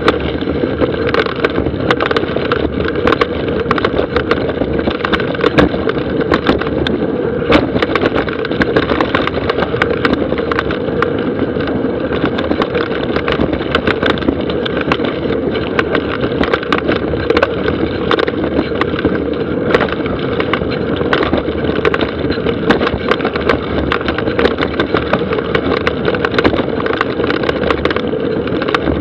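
Mountain bike running fast down a dry dirt trail: a steady rush of tyres on dirt and gravel, with frequent clicks and knocks from the bike rattling over roots and rocks.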